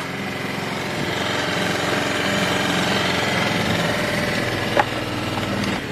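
A boat's engine running steadily as it motors in, with one sharp click near the end.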